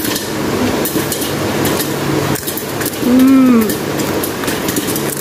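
Crackling, rustling handling noise from a phone held right up against a child's face, over a steady low hum. About three seconds in, a short hum or 'mmm' from the child rises and falls in pitch.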